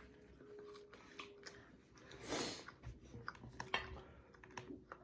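Close-up chewing and mouth sounds of someone eating chicken wings, with scattered small clicks. There is one louder, hissing swish about two seconds in.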